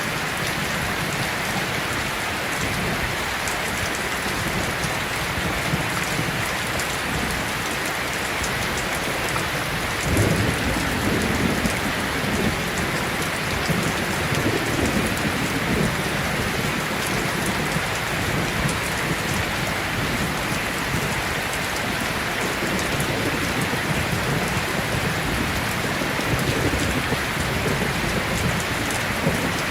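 Steady heavy rain falling outside a window. About a third of the way in, a low rolling rumble of thunder swells up and lasts several seconds, and another rumble comes near the end.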